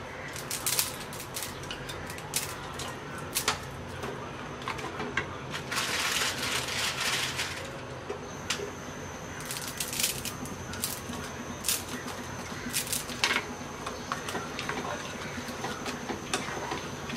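Wooden spoon clicking and scraping against a nonstick wok as blocks of instant noodles are pushed into vegetables simmering in water, over a low bubbling hiss. A short rustling burst comes about six seconds in.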